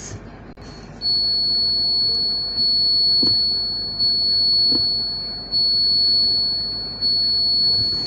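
Electronic buzzer on a breadboard touch-doorbell circuit sounding one continuous high-pitched tone, starting about a second in and stopping near the end, its loudness jumping back up every second and a half or so. The tone means the two bare wires are touching and completing the circuit.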